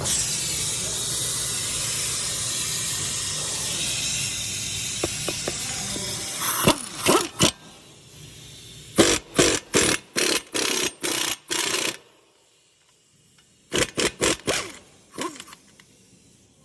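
Impact wrench driving a cut-down lug nut to press an extended wheel stud into the hub: it runs steadily for about six seconds, then comes in a string of short trigger bursts, stops briefly, and gives a few more short bursts near the end.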